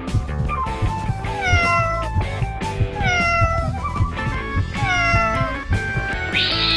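A cat meowing three times, each meow falling in pitch, over backing music with a steady beat; a louder, harsher cat cry begins near the end.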